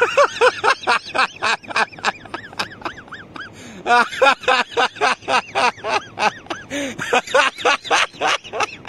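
Comic sound effect: a rapid run of short, squeaky tones that each rise and fall in pitch, several a second, quack-like, with a brief pause a little under halfway through.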